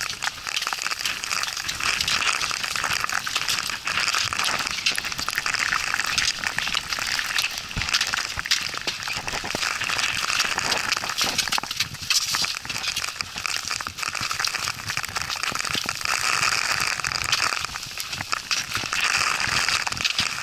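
Steady hiss of wind-blown snow pattering on hikers' jackets and packs, with a constant scatter of small ticks from footsteps and trekking poles on a rocky trail.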